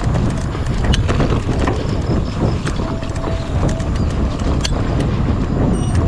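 Wind buffeting a GoPro 9 action camera's microphone as a Specialized Chisel hardtail mountain bike rolls along a road, with steady tyre rumble and frequent irregular clicks and rattles from the bike.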